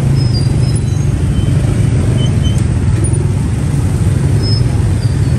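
Steady low rumble of road traffic, with a few faint, short, high chirps over it.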